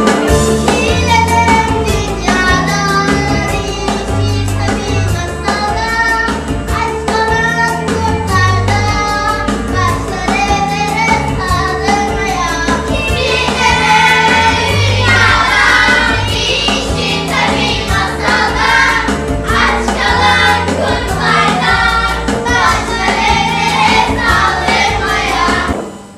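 A song with a group of voices singing, sounding like a children's choir, over a steady bass beat. It cuts off suddenly at the end.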